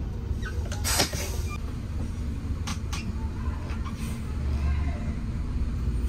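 Bus engine running with a steady low rumble, with a brief hiss about a second in and a couple of short clicks near the middle.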